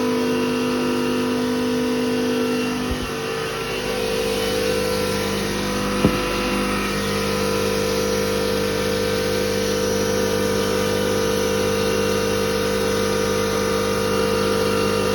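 CNC milling machine running, its spindle giving a steady whine whose pitch changes about three seconds in. A single sharp knock about six seconds in.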